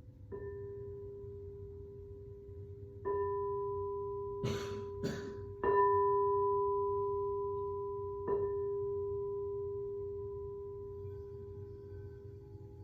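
A singing bowl struck four times at an even, slow pace, each strike ringing out in a long, fading, steady hum with a few clear overtones. Two short swishing noises come between the second and third strikes.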